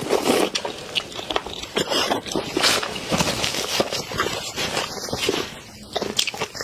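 Close-miked eating sounds: wet sucking, smacking and chewing clicks as a shrimp head is sucked and eaten from a spicy broth. A paper tissue rustles as hands are wiped partway through.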